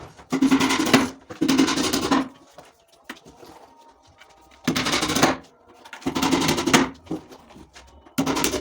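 Repeated strokes of a hand tool working wood, five rough noisy strokes about a second each, coming in pairs with pauses between.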